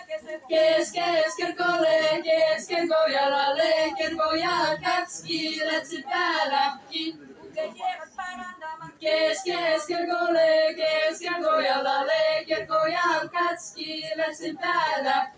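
Small ensemble of mainly women's voices singing a Seto folk dance song together in the Seto language, in short repeated phrases with a brief pause about halfway through.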